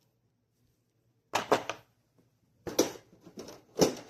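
Board-game cardboard components being handled: a few brief rustles and knocks of cards and boxes being picked up and set down, the first about a second and a half in, the last and sharpest near the end.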